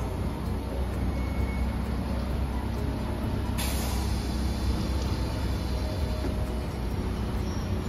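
A Hiroshima Electric Railway 3900-series articulated tram stands at a stop with a steady low hum. About three and a half seconds in, its air system lets out a sharp burst of compressed-air hiss that fades over a second or so.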